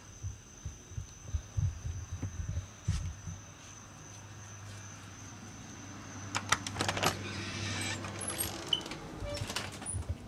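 Low rumble of camera handling at first, then a burst of metallic clicks and rattles about six to seven seconds in as a glass storm door and the front door are opened.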